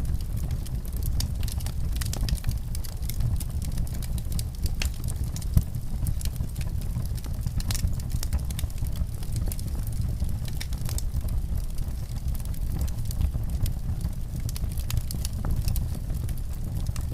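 Fireplace fire crackling, with frequent small pops and snaps over a steady low rumble and one louder pop about five and a half seconds in.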